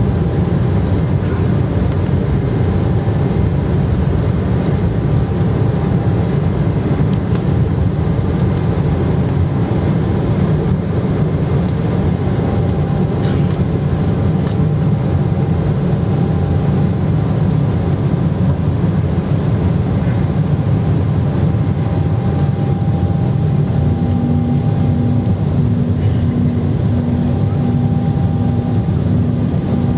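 Cabin noise of an Embraer E190 on its takeoff roll and climb-out: a steady, deep noise from its GE CF34 turbofan engines at takeoff thrust, heard from a window seat beside the wing. A faint on-off hum joins about three-quarters of the way through.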